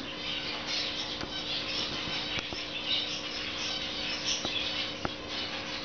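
Small cage birds chirping and twittering together, a busy scatter of short high chirps with a few faint clicks among them.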